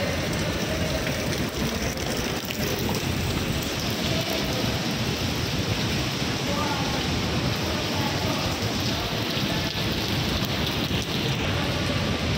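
Underground cave waterfall rushing with a steady, even roar of falling water.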